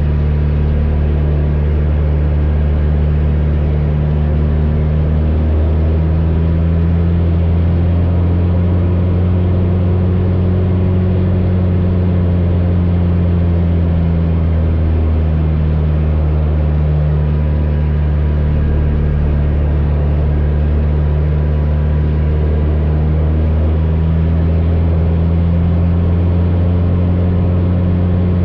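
AcroSport 2 biplane's 180 hp piston engine and propeller running steadily through an aerobatic manoeuvre, its pitch sliding up and down a few times as power and airspeed change through the loop and roll.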